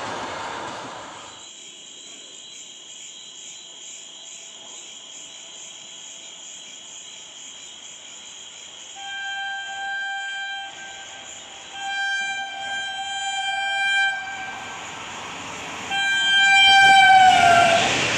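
Indian Railways locomotive horn sounding three times as an express train approaches at speed, each blast louder than the last. The third blast drops in pitch as the locomotive passes, and the rush of the train going by sets in at the end. A rushing noise fades out in the first second or so.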